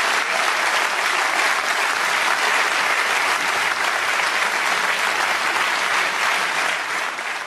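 An audience applauding steadily, fading out near the end.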